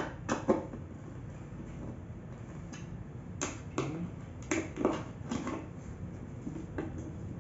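Screwdriver clicking and tapping against screw heads and the steel mount plate of an office chair's tilt mechanism as the plate is screwed to the seat: irregular sharp clicks, most of them bunched from about three and a half to five and a half seconds in.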